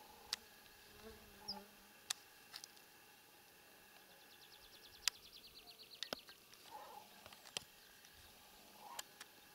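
Faint outdoor ambience with a light insect-like buzz and a rapid, high chirring trill lasting about two seconds, starting about four seconds in. Several sharp clicks are scattered through it, the loudest about five seconds in.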